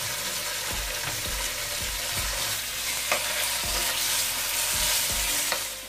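Chicken strips sizzling steadily in hot oil in a non-stick frying pan, with a spatula pushing them around and bumping against the pan now and then.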